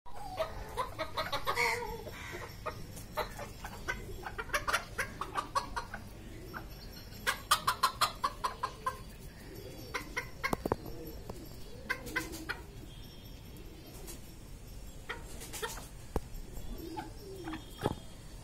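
A small flock of Chabo (Japanese bantam) chickens clucking: runs of quick, short clucks separated by brief pauses.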